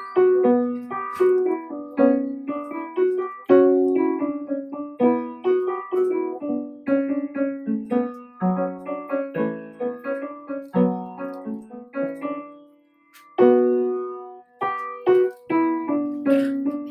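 Solo piano music, a run of struck notes and chords that ring and fade, with a brief pause about thirteen seconds in before the playing picks up again.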